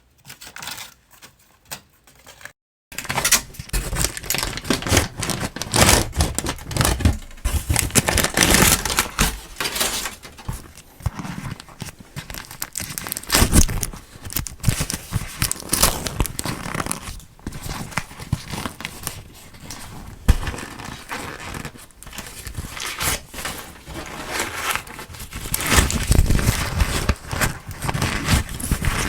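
Close-miked chewing of soft durian flesh: a dense run of short mouth clicks and crackly, sticky chewing noises. It is faint for the first few seconds, then starts in earnest.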